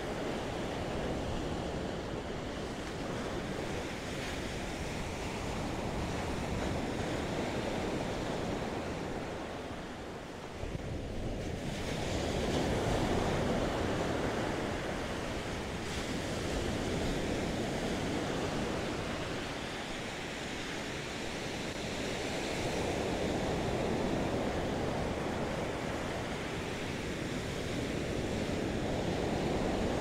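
Ocean surf breaking and washing up the beach, swelling and fading every few seconds, with wind rumbling on the microphone.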